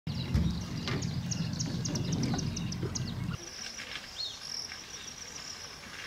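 Birds and insects outdoors. In the first half, short high chirps come in quick succession over a low rumble. The rumble stops abruptly a little past halfway, leaving a steady high insect trill with a few gliding bird calls.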